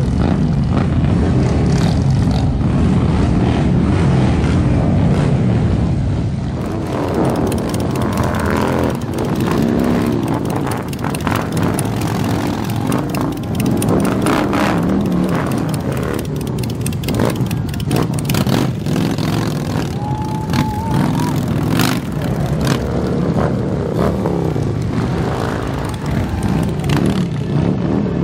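A group of big touring motorcycles pulling away one after another, their engines roaring and revving as they pass.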